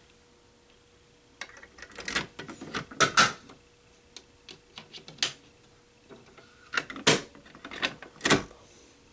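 Sharp clicks and knocks at irregular intervals, the loudest about three, seven and eight seconds in: hands working the controls and door of a fire alarm control panel while resetting it.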